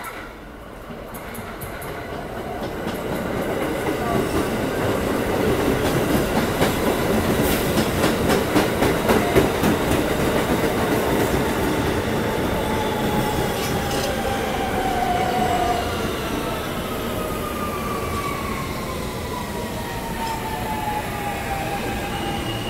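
R160 subway train pulling into the station: it grows louder as it approaches, its wheels clatter over the rail joints, then the whine of its electric traction motors falls steadily in pitch as it brakes.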